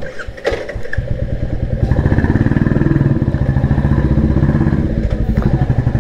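Royal Enfield 350's single-cylinder engine pulling away from low revs with its rapid, even thumping exhaust beat, after a clunk about half a second in. The engine picks up about a second in and eases off a little near the end.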